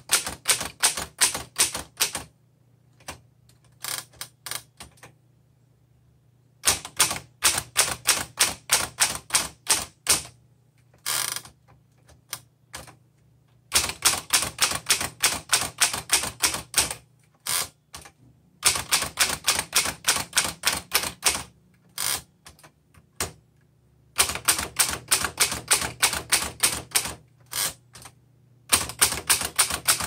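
1927 Underwood Standard 4-bank portable typewriter being typed on: its typebars strike the platen in quick runs of about four or five keystrokes a second. Pauses of a second or two fall between the runs.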